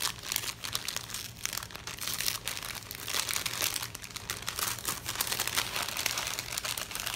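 Paper gift bag crinkling steadily as hands peel its sticker seal and unfold and handle it, a dense run of small crackles.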